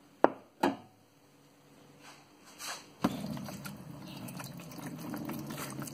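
Two sharp knocks in the first second, then, about halfway through, white vinegar starts pouring in a steady stream into a plastic crate and keeps pouring.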